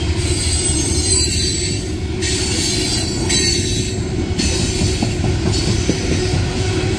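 Loaded steel coal hopper cars rolling past on the rails: a steady, loud rumble of wheels on track, with high-pitched wheel squeal coming and going in stretches of about a second.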